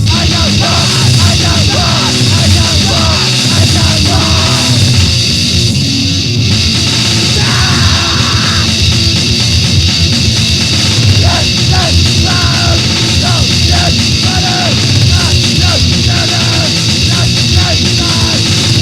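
Loud, fast grindcore / power-violence band music played off a 1999 demo-tape recording.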